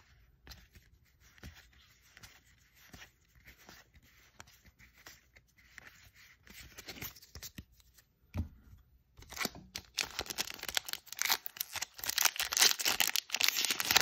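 Playing cards rustling softly as they are handled. From about nine seconds in, the foil wrapper of a Magic: The Gathering Ikoria draft booster pack crinkles and crackles loudly as it is torn open.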